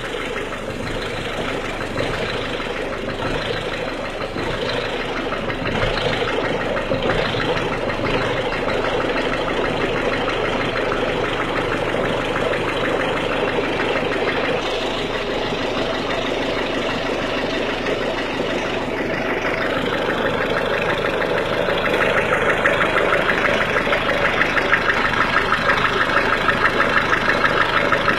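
1.6 HDi diesel engine idling with a clattering knock, the engine noise heard from cold. The running gets somewhat louder with a more even pulsing rhythm about three-quarters of the way through.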